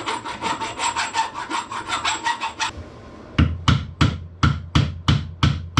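Hand-tool work on bicycle parts: fast, even metallic rasping strokes with a faint ringing tone for about three seconds, then after a short pause a run of about ten sharp knocks, roughly three a second.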